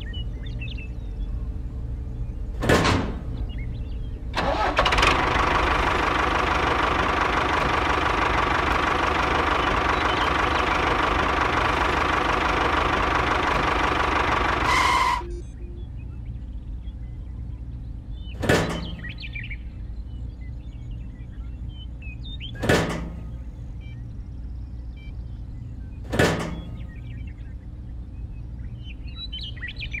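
A small motor runs steadily for about ten seconds, starting and cutting off suddenly. Four sharp knocks come before and after it, from metal parts of the model being set down.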